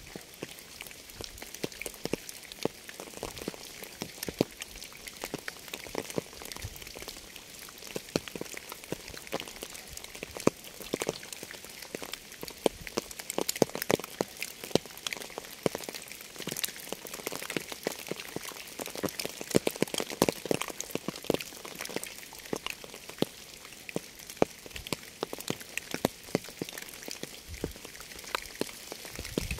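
Rain falling steadily, with many separate raindrops striking a surface in a dense, uneven patter of sharp little clicks over a hiss.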